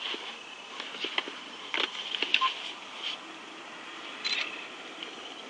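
Steady high chirring of insects, with a scatter of short sharp clicks and taps over it.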